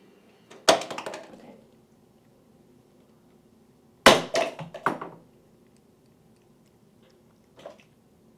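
Two clatters of hard objects being knocked or falling, each a quick run of several sharp knocks, about three seconds apart, with one faint knock near the end.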